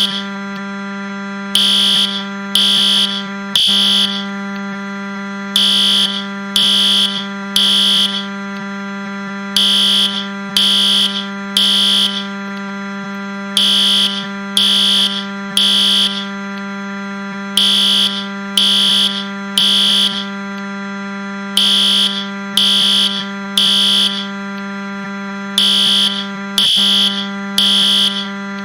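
Fire alarm beeping in groups of three high beeps with a pause between groups: the temporal-three evacuation pattern. Underneath runs a continuous low, harsh buzz, the Wii console crash sound pitched down.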